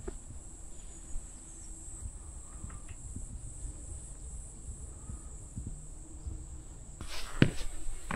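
Insects chirring steadily in one high-pitched band, with a few footsteps on the trail near the end.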